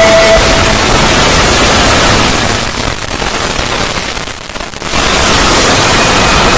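Loud, harsh static-like noise of a synthetic 'void' sound effect, filling every pitch from deep rumble to hiss. A few held tones fade out in the first half second. The noise sinks noticeably quieter for about two seconds near the middle, then comes back at full strength.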